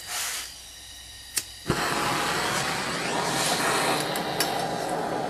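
Propane torch lit for a small melting furnace: a sharp click, then about a second and a half in the flame catches suddenly and burns with a steady, loud hiss.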